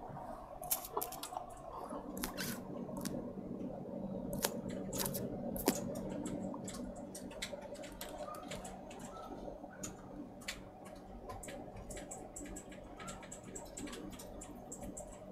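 Faint, scattered small clicks and taps of small objects being handled on a workbench, over a steady low hum.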